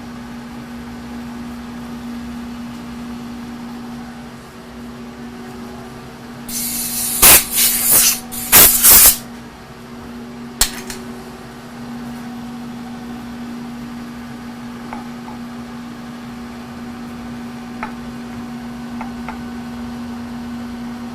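Steady machine hum, broken about six to nine seconds in by several loud hissing blasts of compressed air from a blow gun. A single sharp click follows about ten seconds in.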